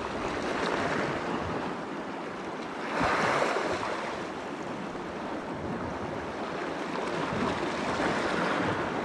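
Sea waves washing on the shore, swelling and falling back, strongest about three seconds in.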